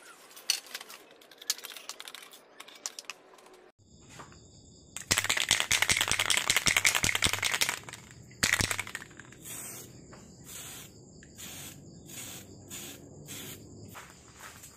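Light metal clicks and rattles of hand work on a bike frame, then a spray-paint aerosol can hissing in one long spray of about three seconds and a short one, followed by a run of short regular bursts. Insects chirp steadily behind the spraying.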